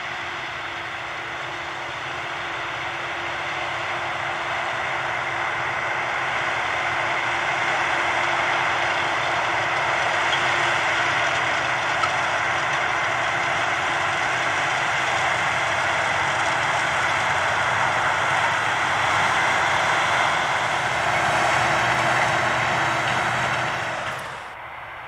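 AGCO Challenger MT775E rubber-tracked tractor's diesel engine running under load as it pulls a Horsch Joker disc harrow through the soil, a steady mechanical rush. It grows louder as the tractor comes close, then drops off suddenly near the end.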